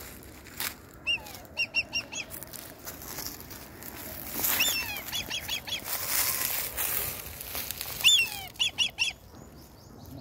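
Black kite calling: three runs of short, high, down-curving whistled notes in quick succession, about a second in, about four and a half seconds in, and about eight seconds in. A rustling noise sounds through the middle.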